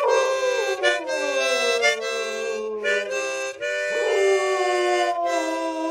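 Harmonica playing held chords while a dog howls along, its howls sliding down in pitch near the start and again about four seconds in.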